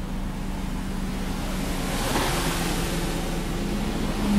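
Twin Volvo Penta D6 marine diesels running steadily at slow cruise, joined about halfway through by a jet ski coming up close alongside, its engine note and the hiss of its spray growing louder near the end.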